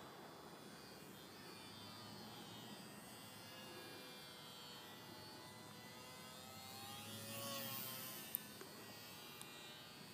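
ParkZone Ultra Micro T-28 Trojan's small electric motor and propeller buzzing faintly overhead, its pitch gliding up and down as it manoeuvres and growing louder to a peak about three-quarters of the way through as it passes. A single sharp click just after the peak.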